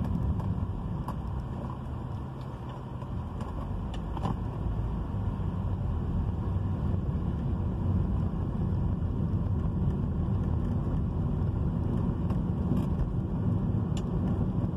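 Car driving, heard from inside the cabin: a steady low rumble of engine and tyre road noise.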